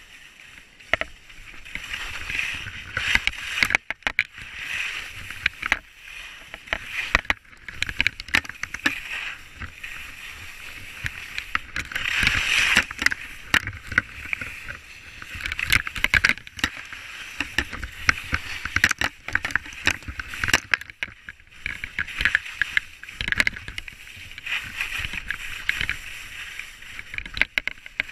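Skis scraping and carving over packed snow: a continuous hiss that swells and fades with the turns, dotted with sharp clicks and knocks, over a low rumble of wind on the microphone.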